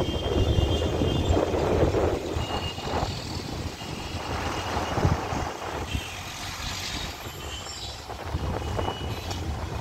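Road traffic from the street far below: a steady hum with a few faint short high beeps. Wind rumbles on the microphone, strongest in the first two seconds and again near the end.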